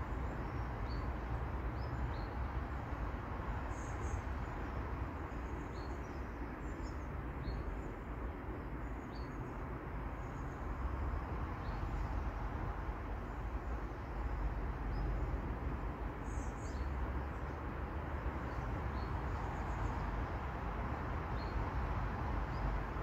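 Small birds chirping now and then, in short high notes, over a steady low rumble.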